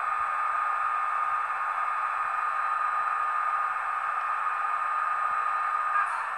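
A Nusser sound decoder in an H0 model of the Taurus electric locomotive plays its running sound through the small onboard speaker: a steady rushing hiss with a faint high whine, and the whine stops near the end. The hiss comes partly from the loose rear pantograph, which vibrates because it sits right above the speaker.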